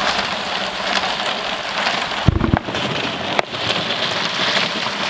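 A big kitchen knife cutting through a mango onto a wooden chopping board, with a quick cluster of dull thuds about two seconds in, over a steady hiss.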